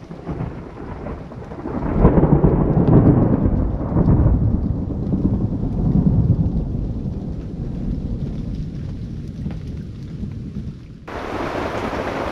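Thunderstorm: a loud peal of thunder breaks suddenly and rumbles on for several seconds, slowly dying away, with rain falling. About eleven seconds in, the sound changes abruptly to a steady hiss of rain.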